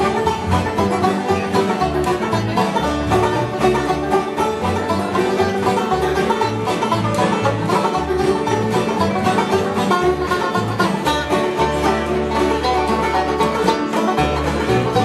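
Bluegrass band jamming an instrumental tune: banjo and guitar picking over a steady bass line.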